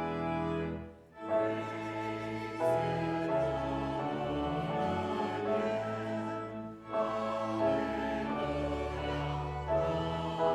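Congregation singing a hymn with pipe-organ-style organ accompaniment, in held chords, with short breaks between lines about a second in and again near seven seconds.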